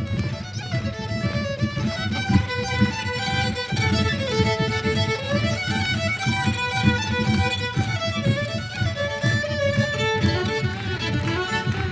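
Two violins playing a tune together in a duet, the melody moving note to note in quick steps throughout.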